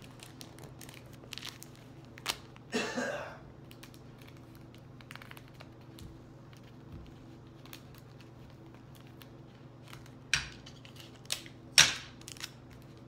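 Hands working paper and tissue stuffing: soft rustling and crinkling with scattered small clicks, a longer rustle about three seconds in, and a few sharp taps near the end, the last of them the loudest.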